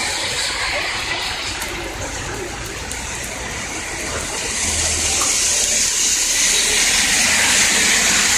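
Heavy rain and tyres hissing on a flooded street. The hiss swells about halfway through as vehicles drive past close by through the standing water.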